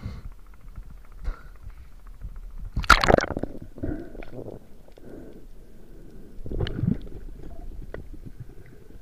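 Water sloshing, then a loud splash-and-gurgle about three seconds in as the camera goes below the surface, followed by muffled underwater gurgling with a second burst a little past the middle.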